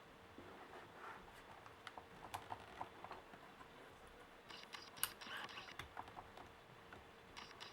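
Small clicks and taps from handling the parts of an Acer Extensa 5260 laptop during disassembly, with a short scraping rustle about five seconds in that carries a sharp click, and another brief scrape near the end.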